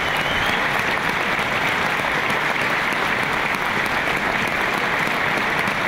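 Large stadium crowd applauding steadily.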